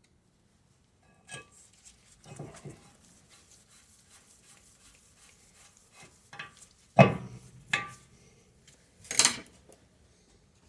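Metal hand tools clinking against a car's brake rotor and hub while the rotor's small retaining screw is set. A run of light ticks, then three sharper metal knocks near the end.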